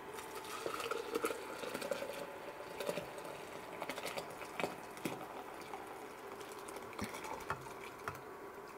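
Hot vinegar and boiled Carolina Reaper chilies poured from a stainless steel pot into a glass blender jug: liquid splashing as the jug fills for the first few seconds, then soft plops with several sharp clinks and knocks as the chilies are tipped in.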